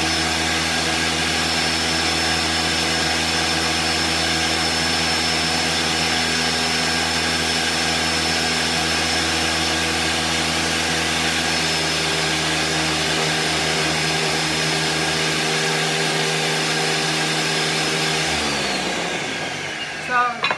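Countertop blender running steadily at high speed, pureeing a thin jerk sauce until smooth. It is switched off near the end, and its whine falls away as the motor spins down.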